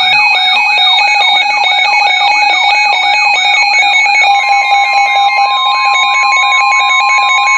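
Loud layered electronic alert tones: a siren-like tone sweeps up and down about two and a half times a second over a pattern of stepping beeps. A little past halfway, the steady NOAA Weather Radio warning alarm tone joins in and holds.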